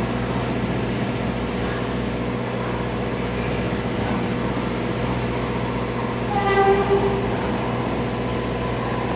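An R142A subway train approaching through the tunnel sounds its horn once, a short steady tone of about half a second, roughly six and a half seconds in. Beneath it runs a steady low rumble.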